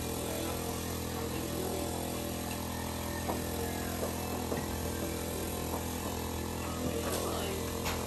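Steady low mechanical hum with a few faint ticks.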